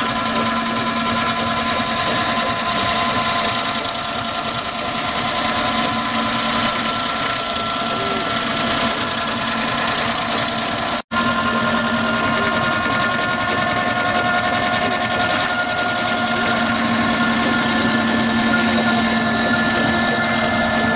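Fowell steam traction engine running with its flywheel turning: a steady mechanical hum and clatter. The sound breaks off for an instant about eleven seconds in.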